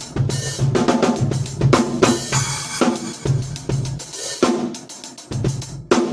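A drum kit played in a fast, busy pattern of bass drum and snare hits with cymbals. A cymbal crash rings out about two seconds in, and there is a brief break just before a hard hit near the end.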